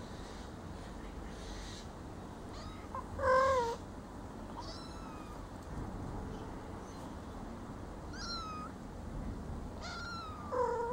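Cats meowing among nursing kittens: several short, high-pitched mews scattered through, with one louder, lower meow about three seconds in and another near the end.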